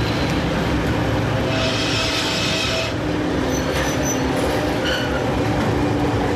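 Class 742 diesel locomotive running at low speed as it eases up to couple onto a failed electric locomotive, its diesel engine giving a steady low drone. About two seconds in comes a high squeal lasting about a second.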